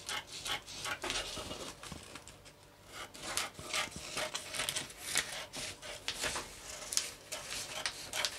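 Scissors cutting through sheets of pattern paper: a steady run of crisp snips with paper rustling. There is a brief lull about two seconds in.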